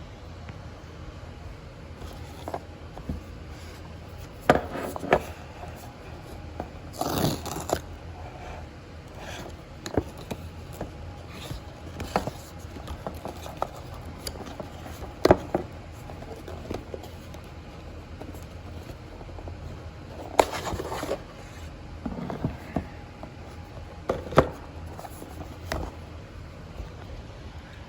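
A camera's retail box being opened and its packaging handled: scattered clicks and taps, with short scrapes of packaging about seven and twenty seconds in.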